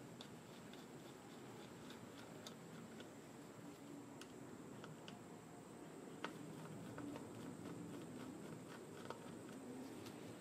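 Faint scattered clicks and light scrapes of hand-tool work on a small-engine carburetor and fuel tank, as Phillips screws are backed out and the parts handled. There is a sharper click about six seconds in and another near nine seconds.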